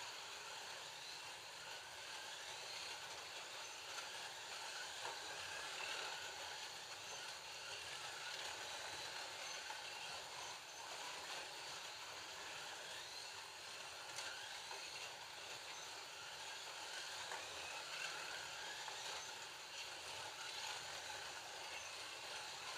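Digital Scalextric slot cars lapping the track: a steady whirring hiss of small electric motors and pickup braids on the rails, with faint rises and falls in pitch as the cars speed up and slow.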